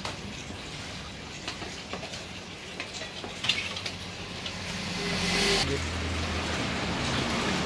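Scattered light clicks and scrapes of a spoon on a metal cake mold as batter for kue klemben is ladled in over a wood fire, with a faint sizzle. About five seconds in comes a short hiss, then a steady low hum.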